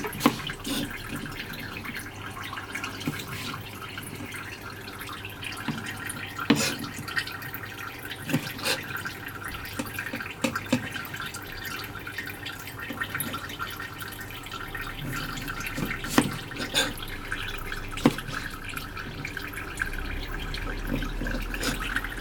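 Kitchen knife cutting lemon wedges on a plastic cutting board: scattered sharp knocks of the blade on the board, about eight in all, over a steady sound of running water.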